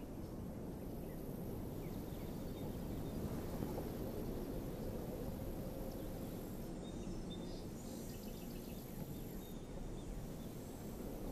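Faint outdoor ambience: a steady low rumble, with a few faint high chirps from insects about halfway through.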